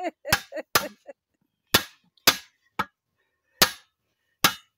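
Hammer striking the steel split locking ring of a 16-inch split-rim truck wheel, about seven sharp metallic blows at uneven intervals, driving the ring down into its seat on the rim.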